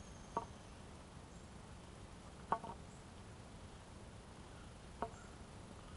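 A wooden walking stick tapping on an asphalt path: three short, sharp taps about two and a half seconds apart, the middle one doubled, over faint steady background noise.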